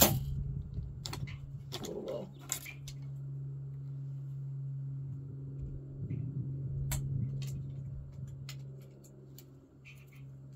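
A compound bow being shot: a sharp snap of the string on release right at the start, then a few fainter knocks over the next few seconds, over a steady low hum.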